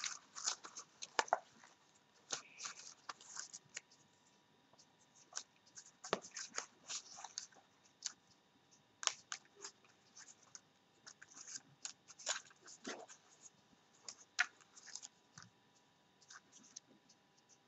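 Hands rummaging in a translucent plastic tub of craft embellishments: irregular light clicks and rustles of plastic and its contents.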